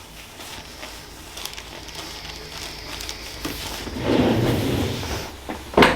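Rustling movement on a padded treatment table about four seconds in, then one sharp knock near the end.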